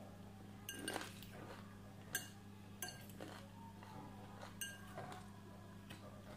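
A metal fork clinking against a glass bowl of chopped salad as pieces are speared and stirred: about half a dozen light, separate clinks with a brief ring. A steady low hum runs underneath.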